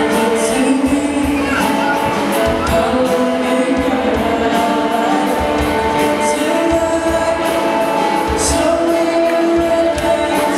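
A group singing a song together, led by a man's voice through a microphone, over amplified music with a steady beat.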